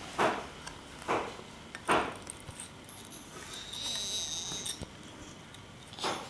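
Wooden toy knife knocking against and pulling apart wooden toy fruit pieces: three short scraping clicks about a second apart, and another near the end. In the middle comes a high-pitched squeal lasting about a second and a half.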